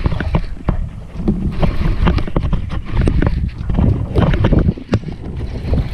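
Wind rumbling on the microphone, with scattered clicks and knocks from hands working a baitcasting rod and reel.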